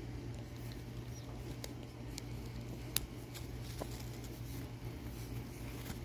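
Scattered small clicks and taps from an African grey parrot handling a toy with its foot and beak while lying on its back, with one sharper click about three seconds in, over a steady low hum.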